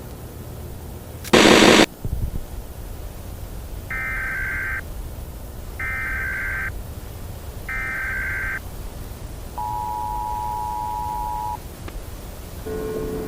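Emergency Alert System tones: a loud burst of static about a second in, then the three chirping data bursts of the SAME header, each about a second long, followed by the two-tone attention signal for about two seconds. Near the end a siren begins to wind up.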